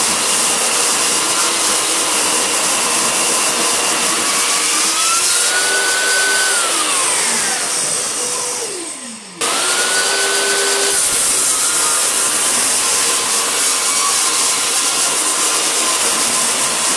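Table saw ripping a rough wooden beam: the motor whines steadily under the cutting noise. About six seconds in, the pitch falls away as the blade spins down, then the sound comes back suddenly at full speed.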